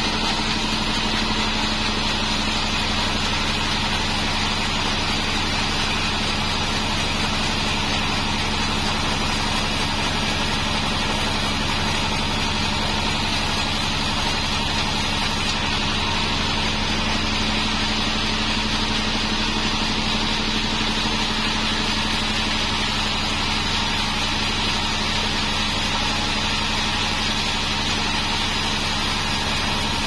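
Bandsaw mill running with a steady hum and hiss as its blade saws along a beam of Bayur wood.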